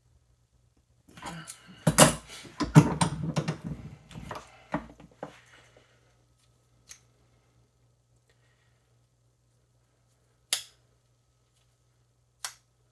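Metal tools clattering for a few seconds as the knife is freed from a bench vise and pliers are set down on a wooden bench. Near the end come two sharp single clicks, the slip-joint pocketknife's blade snapping.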